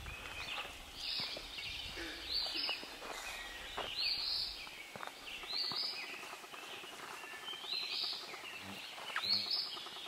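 Dawn chorus of northwoods songbirds, several birds singing at once. The clearest one repeats a short arched phrase over and over, about every second and a half.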